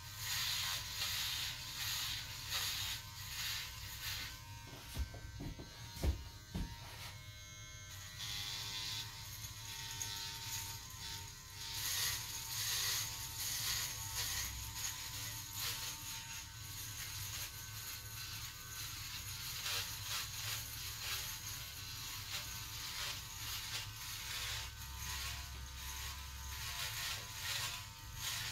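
Cordless hair clipper buzzing as it is run in short strokes over a close-cropped scalp. The buzz dips for a few seconds about five seconds in, with a sharp knock near six seconds, then carries on.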